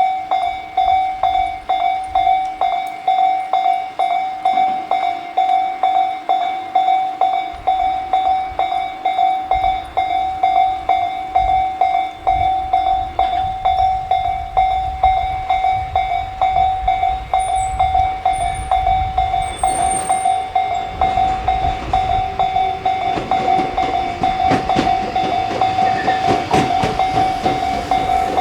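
Japanese railway level-crossing warning bell ringing, a single pitch repeated about twice a second. In the last several seconds an approaching train's rumble and wheel clatter rise under it.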